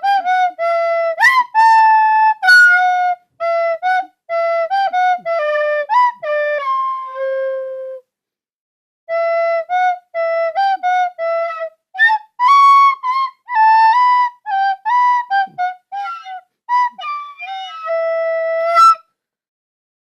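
Solo melody on a flute-like wind instrument, played as background music: short separate notes with some pitch slides, and a brief pause about eight seconds in.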